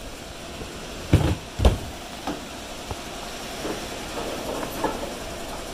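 Two heavy thumps about a second in, over a steady rumble and a few faint clanks, as a metal mast-type aerial work lift is handled.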